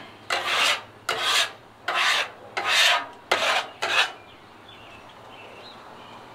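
Griddle scraper rasping across the steel cooktop of a Blackstone 36 griddle in six short strokes, scraping off cooked-on bits. The strokes stop about four seconds in.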